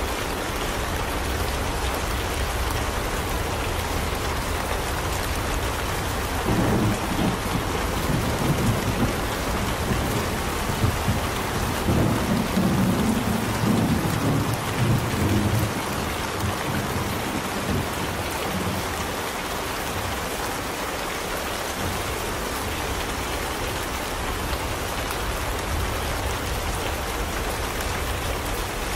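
Steady rain, with a long rolling rumble of thunder from about seven seconds in until about sixteen seconds in.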